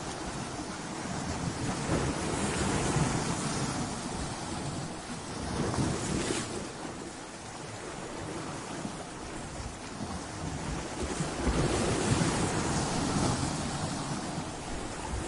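Sea waves breaking on and washing over rocks: a continuous rush of surf that swells louder several times, around two, six and twelve seconds in, as waves hit.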